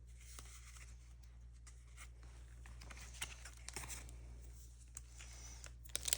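Faint rustling and a few light clicks of trading cards and foil booster-pack wrappers being handled, over a steady low hum.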